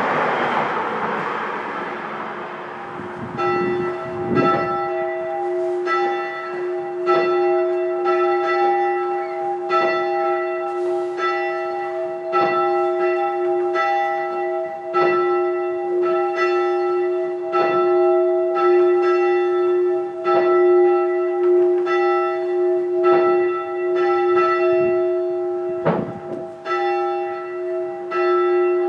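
A single rope-rung church bell swinging and striking about every 1.3 seconds, each stroke ringing on into the next so its tone never dies away. A rushing noise fades in the first couple of seconds before the strikes begin about three seconds in.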